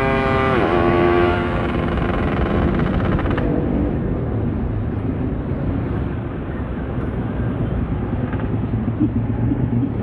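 Steady motorcycle riding noise: engine and wind rush. A long horn blast opens it, drops in pitch about half a second in as the vehicle passes, and fades out over the next three seconds.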